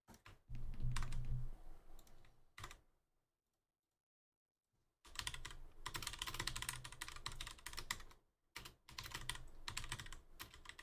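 Typing on a computer keyboard: a few scattered keystrokes, a pause, then about five seconds in a fast run of keystrokes that breaks off briefly and starts again.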